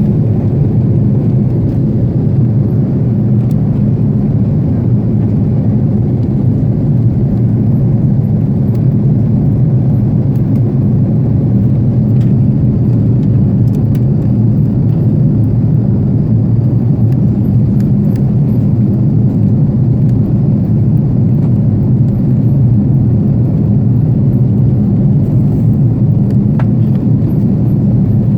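Airbus A330 airliner cabin noise: a steady, loud, low drone of the jet engines and airflow, even throughout.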